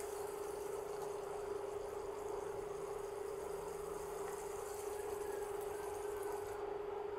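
Steady hum with one constant tone over an even hiss, from an induction cooktop heating a pan of simmering peanut sauce, as coconut milk is poured into a measuring cup and then into the pan.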